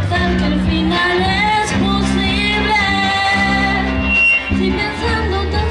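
A woman singing a melody into a microphone with a live band, an electric bass guitar holding sustained low notes underneath, all amplified through PA speakers.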